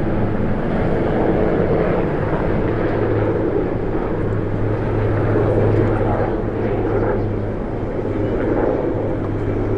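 Marine One presidential helicopter's turbine engines and rotor running: a loud, steady drone over a low hum, swelling slightly midway.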